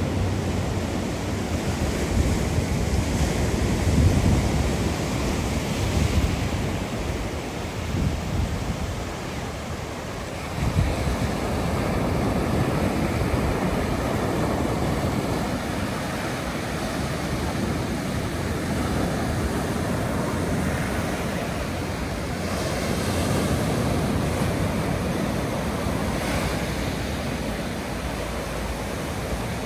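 Sea waves breaking and washing up the shore, a steady surf noise that swells a couple of times near the end, with wind rumbling on the microphone.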